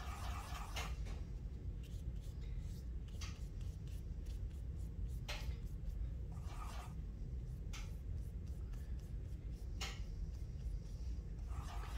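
Paintbrush scrubbing on dry tempera paint cakes and stroking across paper: short scratchy rubbing passes near the start, about two-thirds through and near the end, with a few light clicks between, over a steady low hum.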